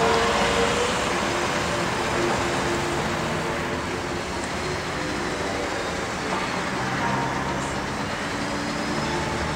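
NEFAZ-5299 city bus with a methane (compressed natural gas) engine driving slowly past, its engine and road noise running steadily.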